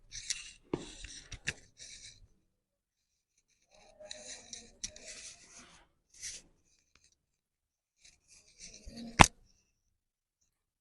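Hands and clothing rustling and rubbing against a body in several short bursts, with a few small clicks, then one loud sharp crack about nine seconds in: a joint popping under a chiropractic spinal adjustment.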